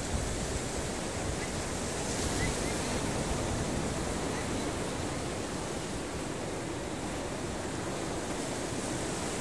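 Sea surf washing onto a beach: a steady, continuous roar of breaking waves with gentle swells in level.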